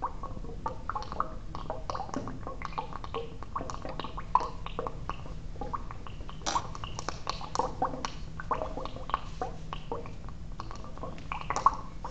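Gas bubbling and gurgling up through water, with irregular small pops and clicks as bubbles of chlorine and acetylene meet and ignite underwater; a few pops are sharper than the rest.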